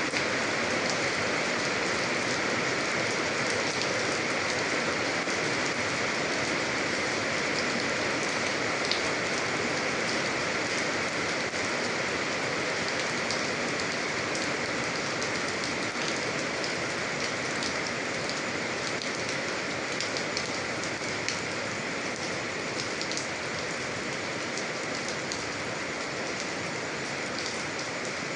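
Steady rain falling on a surface, a continuous hiss with many fine individual drop ticks, easing off slightly toward the end.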